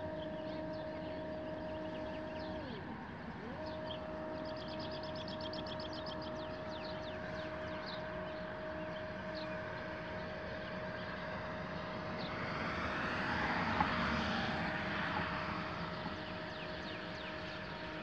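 Astro-Physics Mach2GTO mount's RA-axis motor and gearbox whining steadily as the mount slews, the pitch dipping and climbing back about three seconds in. A broad rushing noise swells and fades past the middle of the stretch.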